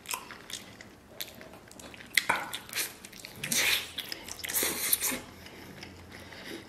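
A person biting and chewing braised lamb rib meat, gnawing it off the bone close to the microphone, in irregular wet crunches and clicks, loudest a little past the middle.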